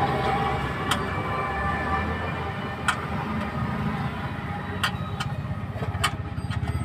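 Vehicle running with a steady low rumble, with a few sharp knocks at irregular intervals.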